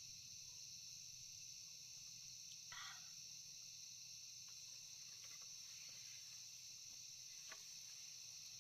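Faint, steady insect chorus in the high register. There is a brief rustle about three seconds in and a couple of light ticks later on.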